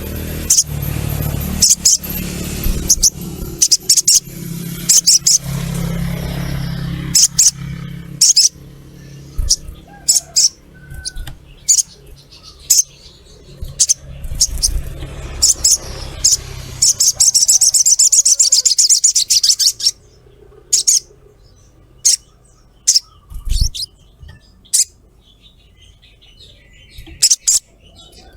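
Sunbird calling: short high 'cret' chirps repeated at irregular intervals. About two-thirds of the way through comes a rapid chattering run of a few seconds. A low steady rumble lies under the first third.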